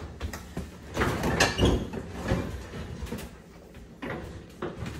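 A GE gas range being shifted out from the wall, its metal body scraping and knocking as it slides. The scraping is heaviest about a second or two in, and a few sharp knocks come near the end.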